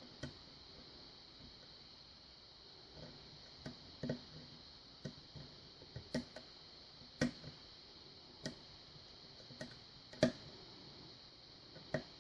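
Faint, irregular metallic clicks and taps from a slim homemade pick working the pins of a 5-pin Yale pin-tumbler lock held under tension, about a dozen scattered clicks.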